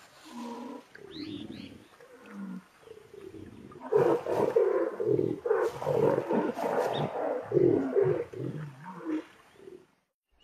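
A mating pair of jaguars growling and snarling, aggressive in tone. A few short growls come first, then from about four seconds in a loud, continuous run of snarls lasts about five seconds and stops shortly before the end.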